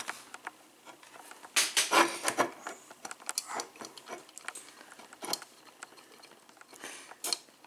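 Irregular clicks and knocks from a metal elevator call button plate being handled and set on a table, a few sharp taps spread a second or so apart.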